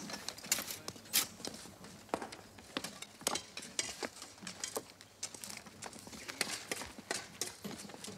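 Irregular knocks, clicks and clatter, several a second, from manual work: spades digging, wooden boards and timber being handled, and boots walking.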